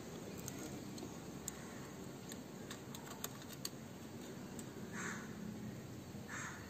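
Faint light metal clicks as the oil strainer screen and its spring are pushed into the scooter's crankcase opening by hand, followed near the end by two short harsh calls.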